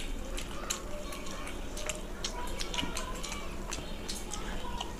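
Two people chewing and smacking their lips while eating chicken momos, with many short, irregular mouth clicks.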